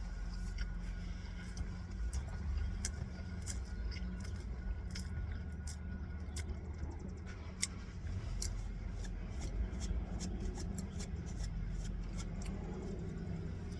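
A steady low rumble, like a vehicle cabin with the engine running, with many small irregular clicks and scrapes of things being handled.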